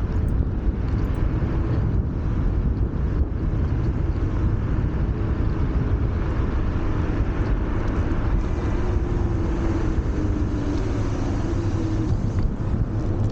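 Wind rushing over the camera microphone and tyres rumbling on pavement while riding a Wolf Warrior 11+ electric scooter at speed, with a faint whine that dips slightly in pitch partway through.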